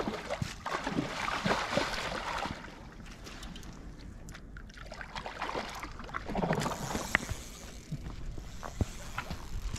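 A hooked salmon splashing at the surface close to the bank, then water sloshing as it is scooped into a landing net. There are two bouts of splashing, about a second in and again past the middle.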